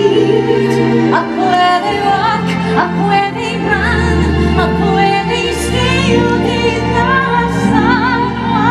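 A woman sings a slow ballad with a live orchestra behind her. Her voice glides between notes with vibrato on the held ones, over sustained orchestral chords with strings.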